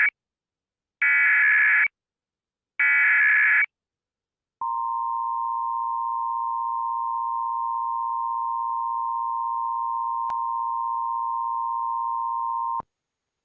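Emergency Alert System test header: the last moment of one SAME digital data burst, then two more harsh buzzing data bursts of about a second each. After about a second of silence comes a single steady attention tone near 1 kHz, held for about eight seconds and cut off, with a brief click partway through.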